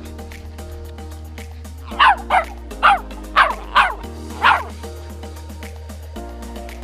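A small white dog barking: six sharp, yappy barks in quick succession starting about two seconds in, each dropping in pitch.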